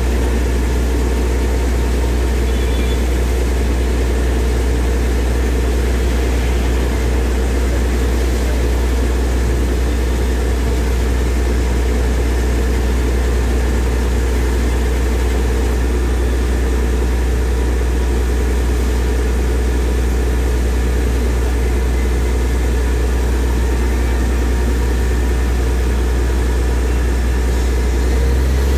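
Tractor-mounted borewell drilling rig running steadily while drilling a 6.5-inch bore, the tractor engine driving it with a deep, even hum under a constant mechanical noise.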